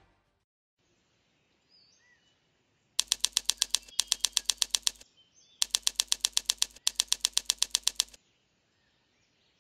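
Typewriter sound effect: quick, evenly paced key clacks, about eight a second, in two runs of two to two and a half seconds with a short pause between.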